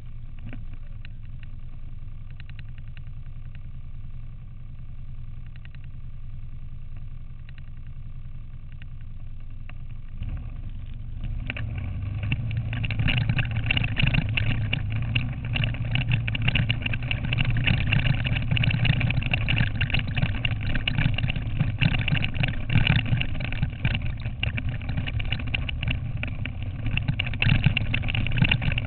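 Quad bike (ATV) engine running as it is ridden over a dirt track, heard from on board the machine. Steady and fairly quiet at first, it turns louder and rougher from about ten seconds in, with a dense clatter that keeps on to the end.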